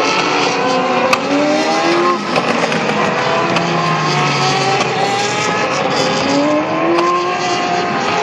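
Single-seater racing car engines accelerating away, each note climbing in pitch and dropping back at a gearshift, several cars one after another, over a steady hiss of spray from the wet track.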